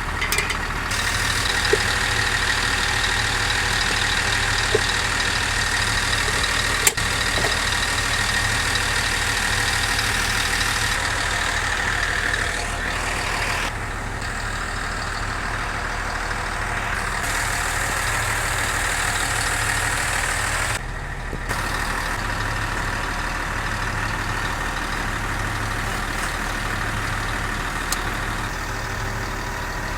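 An engine running steadily at idle, with a few sharp clicks or knocks in the first several seconds.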